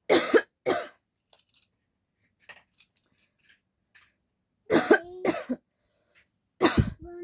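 A person coughing in short, sharp coughs: two at the start, two more about five seconds in, and one near the end.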